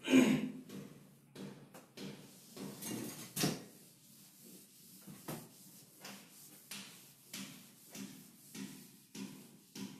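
Whiteboard eraser wiping writing off the board in repeated back-and-forth strokes, about one and a half a second, with a louder sweep right at the start.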